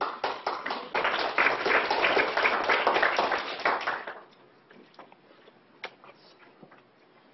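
Small audience clapping. A few claps open it, the applause fills out about a second in and dies away at around four seconds. A few scattered faint knocks follow.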